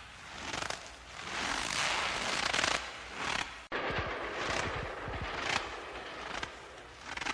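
Footsteps crunching in snow at a slow, even walking pace, one crunch about every second, with a very short break a little past midway.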